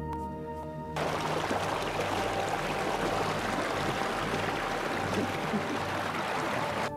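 Water rushing and splashing in a concrete channel, a dense steady wash of noise that starts abruptly about a second in and cuts off just before the end.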